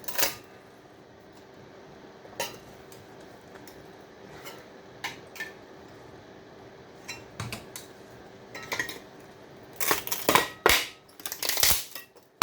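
Metal clicks and knocks from working an aluminium heatsink loose from a power-supply circuit board: sparse single clicks at first, then a dense run of clattering near the end as the heatsink comes free.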